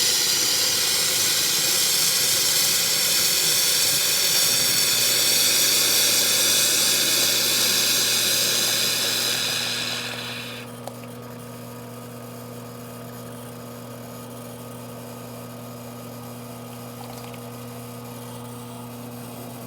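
Rocket R58 espresso machine's hot water tap running hard, a loud steady hissing rush through its newly replaced valve, which now gives plenty of hot water. The tap is shut about ten seconds in, leaving a steady low hum.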